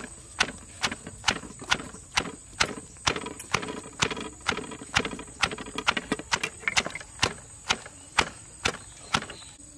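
Stone mortar and pestle pounding red chilies, shallots and garlic: a steady run of dull knocks, about two a second.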